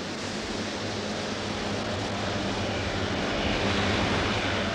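Outboard motor running steadily under a rushing hiss of water and wind, getting a little louder near the end.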